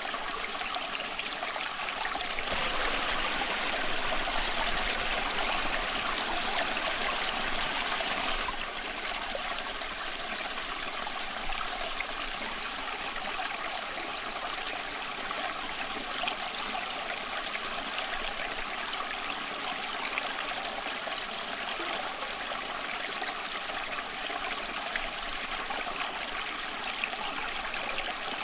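A stream flowing: a steady rush and trickle of water with many small splashy ticks. The flow is a little louder for several seconds near the start.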